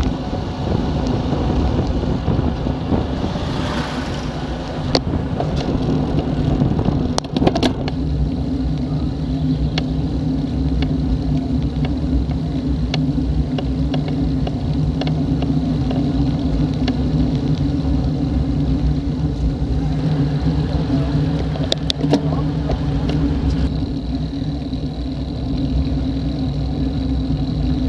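Wind rushing over a bike-mounted camera's microphone and tyre rumble on asphalt as a road bike descends at speed, with a couple of short knocks from bumps in the road.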